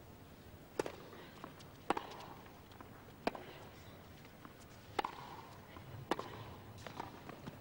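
Tennis ball struck by rackets in a serve and baseline rally: six sharp pops about one to one and a half seconds apart, the serve first, with fainter ball bounces between them.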